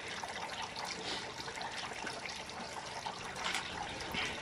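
Garden water fountain trickling steadily, with a few faint clicks of a spoon in a ceramic bowl.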